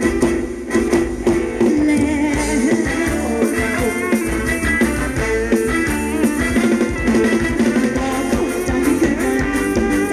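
Live band playing Thai ramwong dance music with a steady beat.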